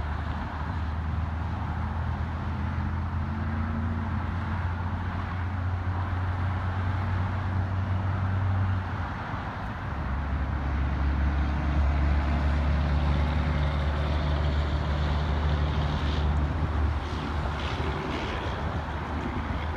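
A running engine's steady low hum, dropping off briefly about nine seconds in, then back and louder.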